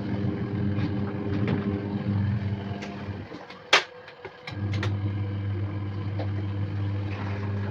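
Mini manual washing machine's wash motor humming, stopping about three seconds in, a sharp click, then the motor starting up again about a second later.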